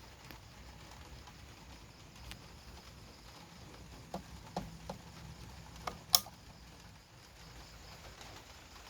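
Mitsubishi C48-GM 48-inch ceiling fan running on speed 1, turning rather slowly, with a faint steady hum. Five short sharp clicks come between about four and six and a half seconds in, the last one the loudest.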